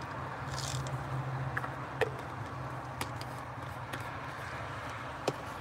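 A steady low hum with a few faint, sharp clicks and taps.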